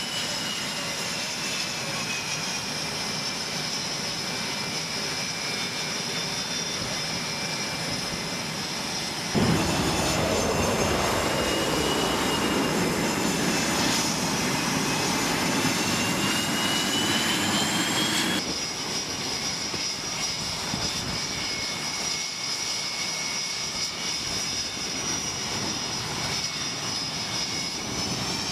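Jet aircraft engines running with a high, steady whine. About nine seconds in, the sound cuts abruptly to a louder stretch whose pitch sweeps downward, and about nine seconds later it cuts back to the steady whine.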